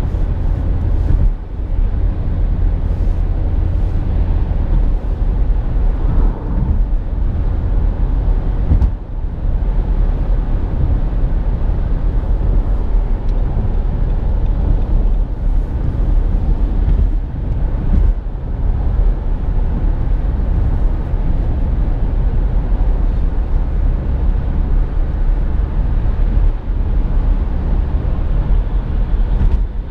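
Steady low rumble of a moving car, engine and road noise together, with a few brief dips in level.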